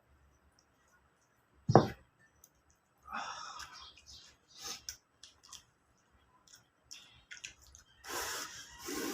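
A person eating rice: chewing and mouth noises in short spells, with one sharp, loud knock a little under two seconds in.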